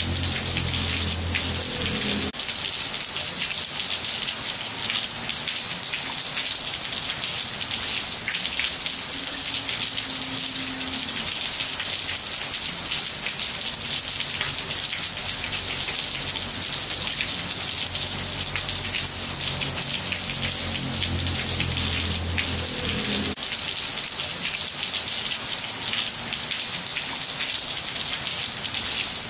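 Steady rain falling on a wet tiled floor, a dense patter of drops splashing on the tiles. A faint low hum comes and goes in the background.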